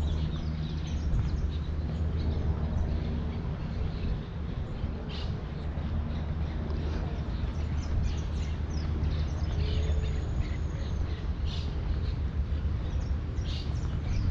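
Park ambience: scattered short bird chirps and a brief high whistle about ten seconds in, over a steady low rumble.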